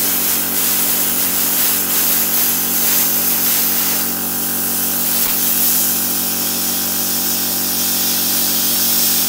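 Tenya Cut60C plasma cutter's arc cutting steel plate: a steady, harsh hiss over a buzzing hum.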